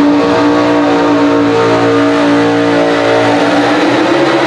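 Chevrolet pro stock mini pulling truck's racing engine running at high revs through open exhaust stacks while dragging a weight-transfer sled. The pitch holds nearly steady, sags slightly about three and a half seconds in, then starts to climb again near the end.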